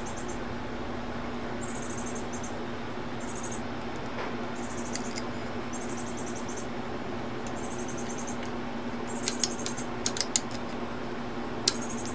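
Small sharp metal clicks from a bent wire spring and a hand tool being worked into an Underwood typewriter's mechanism, several in quick succession in the last few seconds, over a steady low hum.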